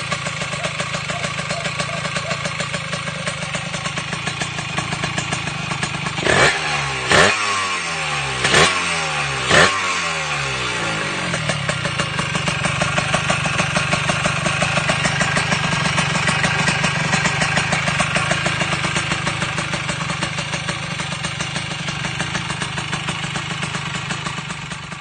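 Yamaha RXT 135 two-stroke single-cylinder engine idling through an aftermarket 'busog jambo' expansion-chamber exhaust. It is blipped four times in quick succession, from about six to ten seconds in, and the revs fall back after each blip before it settles into a steady idle again.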